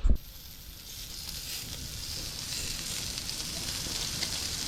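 Seasoned chicken thighs sizzling on a barbecue hotplate: a steady hiss that builds a little over the first two seconds, after a short thump at the very start.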